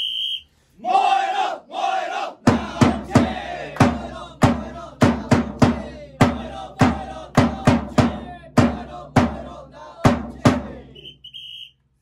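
Baseball cheering-squad chant: a whistle blast, two shouted calls, then a group chanting in rhythm over steady bass drum beats struck with a mallet, about two or three a second, with another short whistle blast near the end.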